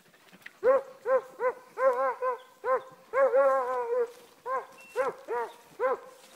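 Beagle/Walker hound baying on a scent trail: a fast run of short barks, about a dozen, with one longer drawn-out bay about three seconds in. The baying is the sign that the hound is on the scent and trailing it.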